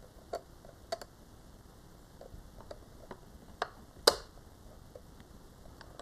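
A handful of small, sharp plastic clicks, the loudest about four seconds in: fingernails flicking up the tiny latch levers on the connectors inside a DJI Phantom 4 Pro remote controller.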